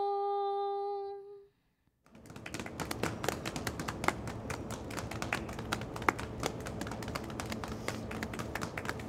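A woman's voice holds the last sung note steadily and fades out about a second and a half in. After a brief silence, audience applause starts, builds quickly and continues as steady clapping.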